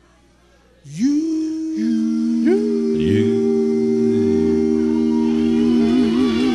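Male vocal group singing a held closing chord in close harmony: after a brief hush, the voices come in one after another about a second in, each sliding up into its note, and stack into a sustained chord that takes on vibrato near the end.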